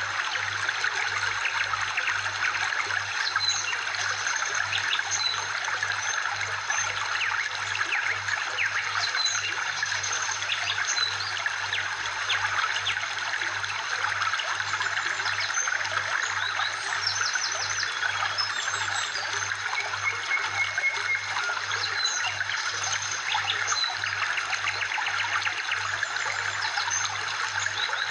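Steady trickling, flowing water with scattered short bird chirps over it, a continuous nature-sound backing track.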